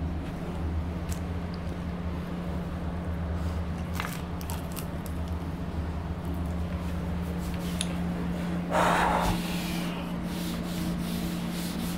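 Steady low hum of room tone, with a few faint clicks and a brief rubbing scrape about nine seconds in.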